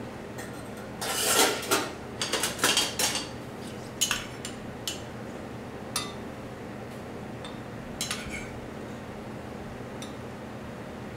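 Dishes and metal cutlery clattering: a run of clinks and scrapes for about two seconds, then a few single clinks spaced a couple of seconds apart.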